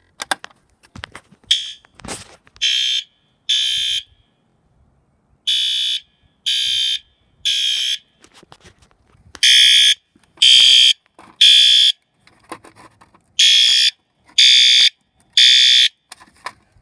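System Sensor P2RL fire alarm horn sounding the temporal-three (code 3) evacuation pattern: four rounds of three short, shrill blasts, each round followed by a pause, the last two rounds louder. The owner guesses this is the horn's loud setting.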